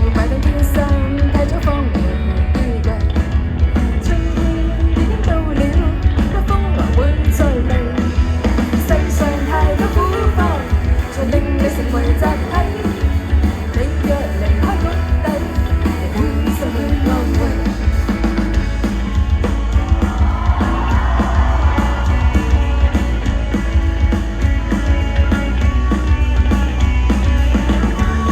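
Live band performing a song with a singer over heavy bass, the singing mostly in the first half.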